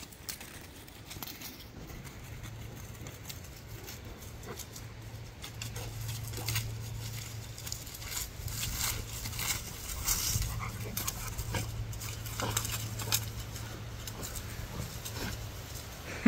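Cane Corso dogs playing over a thrown stick: scattered scuffs and rustles of paws and bodies, busiest around the middle, over a steady low hum.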